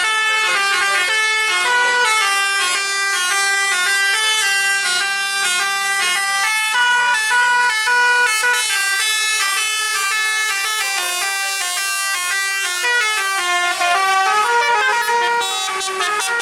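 Bus 'telolet' multi-tone horn playing a quick tune of short, stepped notes that follows on without a break.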